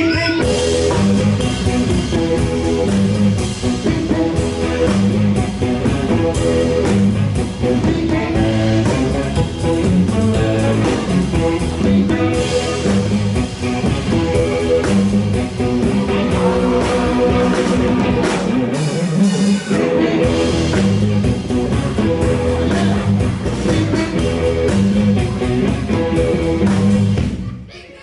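Live blues band playing guitar and drums with a steady beat, the music breaking off briefly near the end.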